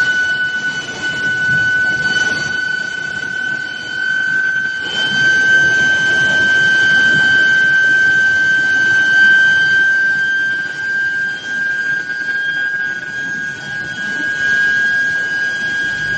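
Steel billet induction heater's steady high-pitched whine with a couple of fainter overtones, its pitch creeping slowly upward, over a rough machinery rumble.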